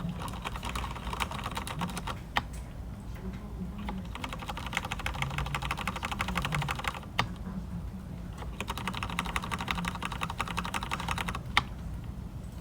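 Fast typing on a mechanical keyboard with red linear switches: three runs of rapid key clicks, with a single heavier keystroke after each run.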